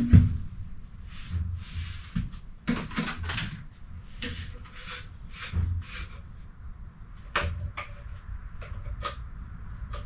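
Sink drain fittings being handled and fitted together by hand: a sharp knock right at the start, then an irregular run of clicks, clunks and scrapes.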